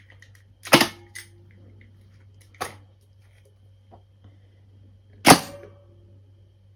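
Electromagnetic contactors and relays on a tram's emergency track-brake control panel clacking as the emergency stop sequence runs: a loud clack about a second in, a second clack near the middle, a few faint ticks, then another loud clack about five seconds in with a brief ring. The track-brake contactors pull in for the programmed delay and then drop out, over a steady low electrical hum.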